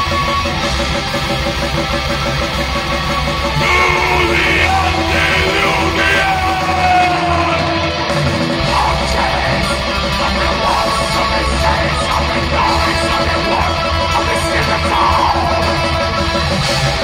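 Black metal band playing live: distorted electric guitars, bass and drums at full volume, with harsh shouted vocals over them.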